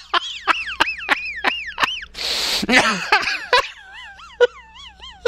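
A man laughing uncontrollably: quick, high-pitched bursts of laughter about three a second, broken by a long gasping breath about two seconds in.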